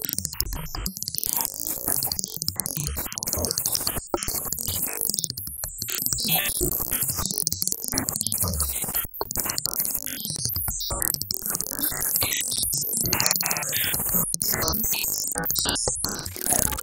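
Electronic synthesizer music: a dense, noisy, glitchy texture that stutters and breaks off briefly several times.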